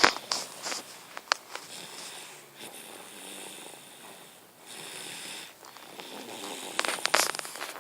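Twin brothers snoring in their sleep, breath after breath in a slow rise-and-fall rhythm, with a louder burst of snoring near the end.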